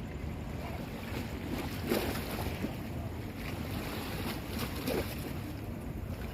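Sandstorm wind buffeting the microphone: a steady low rumble with louder gusts about two seconds in and again about five seconds in.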